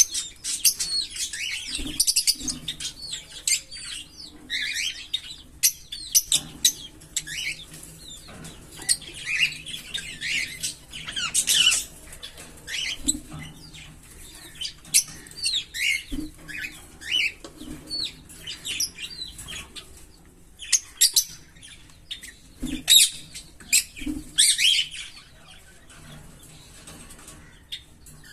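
A pair of Fischer's lovebirds chirping: many short, high chirps in quick runs, thinning out near the end.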